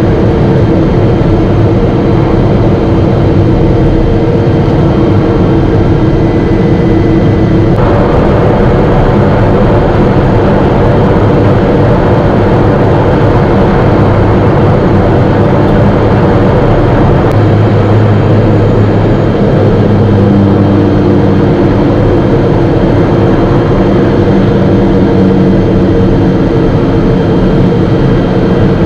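Single-engine propeller aircraft's engine and propeller running steadily, heard inside the cockpit while the plane taxis after landing. The tone changes slightly about eight seconds in.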